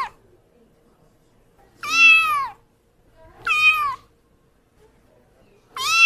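A kitten meowing repeatedly: short, high meows, each rising and then falling in pitch, coming about every one and a half to two seconds, with quiet gaps between.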